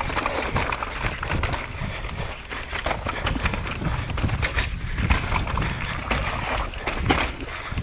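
Mountain bike riding fast down a rough downhill trail, heard from the bike-mounted action camera: wind buffeting the microphone, with a constant rattle and frequent sharp knocks as the bike hits bumps.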